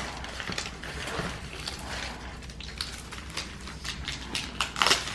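Plastic packaging crinkling and crackling as hands pull and tear at the wrapping of a toy egg, in irregular clicks with a louder burst of crackling near the end.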